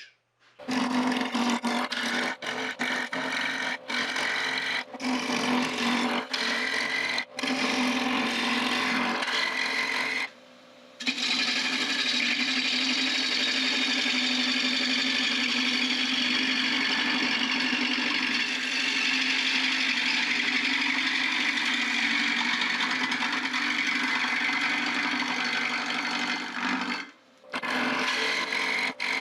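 A Thompson 3/4-inch bowl gouge cutting the bottom of a spinning oak birdhouse body on a Robust American Beauty wood lathe: a hiss of cutting over a steady hum. The cutting is broken and stop-start at first, then runs continuously, with short gaps about ten seconds in and near the end.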